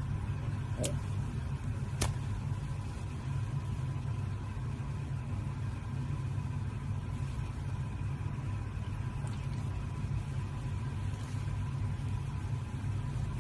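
A steady low machine-like hum with a thin steady tone above it, and two light clicks in the first couple of seconds.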